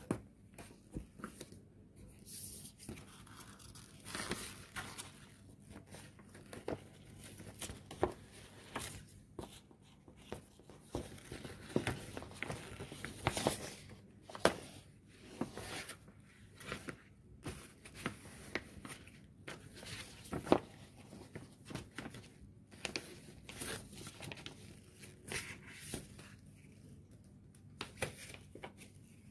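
Paper and cardboard packaging handled by gloved hands: irregular rustling and crinkling of a folded paper leaflet and a card box, with many sharp taps and clicks as the lid and inserts are moved.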